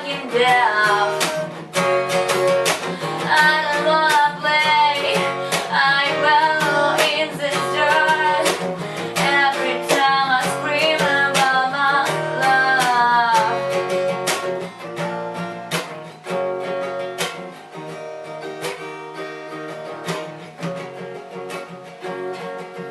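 Song with strummed acoustic guitar and a singing voice. The voice stops about 14 seconds in, and the guitar plays on, getting quieter toward the end.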